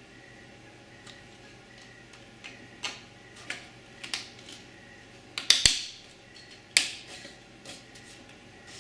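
Thin wooden organizer pieces clicking and knocking against each other as they are slotted together by hand and touched down on a wooden tabletop: a scatter of light, irregular taps, with a few sharper knocks a little past the middle.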